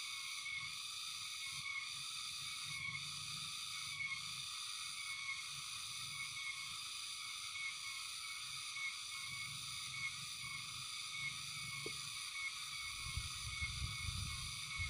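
Steady, dense chorus of frogs and insects calling, pulsing regularly, with a low rumble of handling noise near the end.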